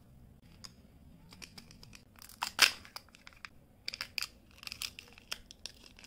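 Candy wrapper being torn and crinkled: irregular sharp crackles, sparse at first, the loudest about two and a half seconds in, and a busy run of them through the last two seconds.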